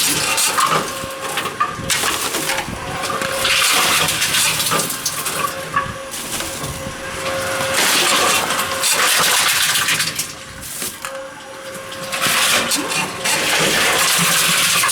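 Tomra T-53 reverse vending machine with its shredder running: a steady hum underneath, and long bursts of noise of a few seconds each as it works, with short lulls between them.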